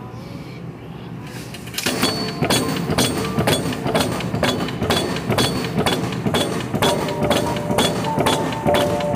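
20-ton OBI punch press cycling continuously, its ram knocking in an even rhythm about three times a second, starting about two seconds in, over background music.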